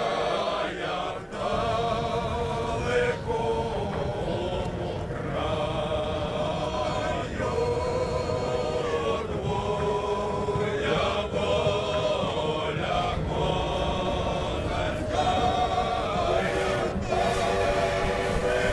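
A group of men singing a slow, chant-like song, with long held notes that break every few seconds, over a steady low rumble.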